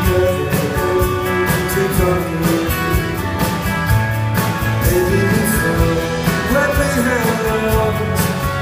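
Live rock band playing an instrumental passage of the song, guitar over drums with steady cymbal strokes.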